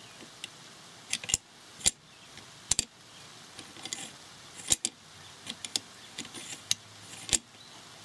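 M1 carbine bolt being twisted and rocked into its seat in the receiver: an irregular series of sharp metal-on-metal clicks with light scraping between them.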